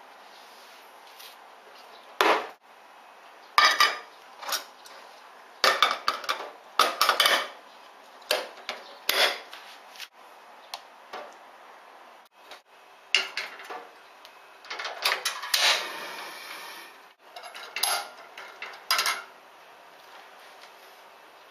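Stainless-steel Alessi 9090 stovetop espresso maker being handled: its metal parts clink, knock and scrape in a string of irregular short clatters as it is wiped, screwed together and set on a gas burner grate. There is a longer scraping stretch a little past the middle.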